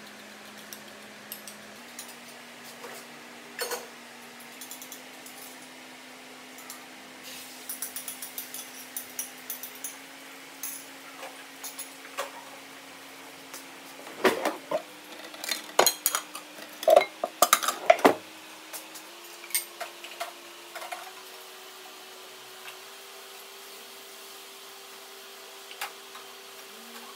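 Kitchenware being handled: a spoon clinking against a ceramic bowl and dishes knocking, in scattered clinks with a busier, louder run of clinks and knocks in the middle.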